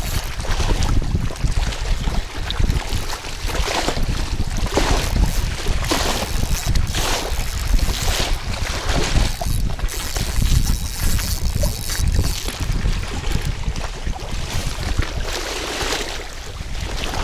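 Wind buffeting the microphone with a steady low rumble, over small waves lapping and splashing against the reedy bank in surges about once a second.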